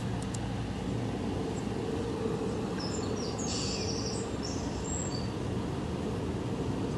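A few short, high bird chirps about halfway through, over a steady low rumble.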